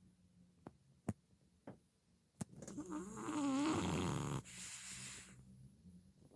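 Old English Bulldogge puppy snoring in its sleep: one long, wavering snore about three seconds in, trailing off into a breathy exhale, with a few faint clicks before it.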